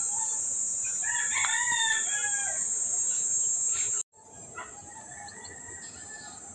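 A rooster crowing once, one call about a second and a half long that ends on a falling note, over a steady high-pitched hiss. The sound cuts out abruptly about four seconds in and comes back quieter.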